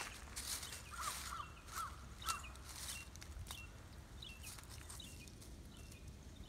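Dry fallen leaves rustling and crackling in short, faint bouts as the cats scuffle over a small snake in the leaf litter. A bird chirps four short calls a little after a second in, with other faint chirps in the background.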